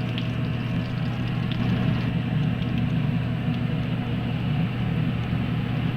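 Breaded sand dabs frying in hot olive oil and butter in a pan: a steady sizzle, over a steady low hum.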